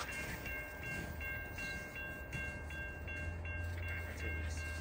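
Freight train running by with a steady low rumble. Over it, a high ringing tone repeats about two to three times a second.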